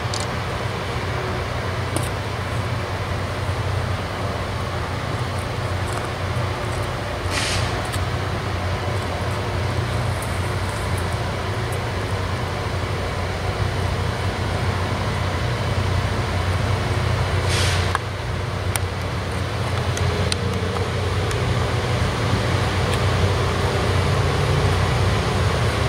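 Diesel locomotive approaching slowly, its engine rumbling steadily and growing louder. Two short bursts of air hiss come about seven and eighteen seconds in.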